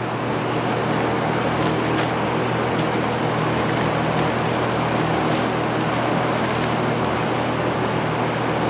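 Antique Lakewood box fan running on high speed: a steady rush of air over a low motor hum, getting a little louder in the first second as it comes up to speed, with a few faint ticks.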